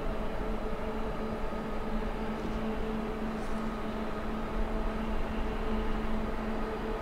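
A 2TE116 two-section diesel locomotive's V16 diesel engines running steadily under heavy load as it hauls a freight train up a grade, a steady drone with a low rumble.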